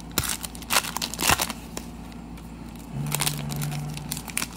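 Foil wrappers of 2020 Legacy football card packs crinkling and crackling in the hands, in a few sharp rustles as a pack is handled and opened.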